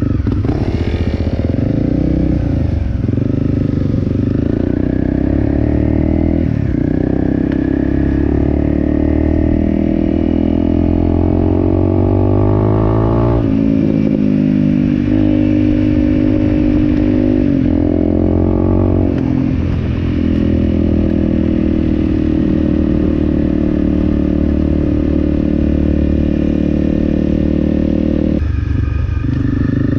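Single-cylinder 250cc dual-sport motorcycle riding along a dirt road, heard on board: the engine pulls steadily. About halfway through the pitch drops suddenly and climbs again as it shifts up. A few seconds later there is another dip and rise, and near the end the throttle eases off.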